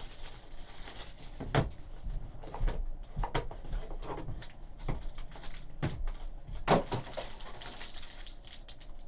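Cardboard box of Panini Signature Series baseball cards being handled and opened by hand: a string of light knocks and scrapes of cardboard, the loudest about a second and a half in and again near seven seconds.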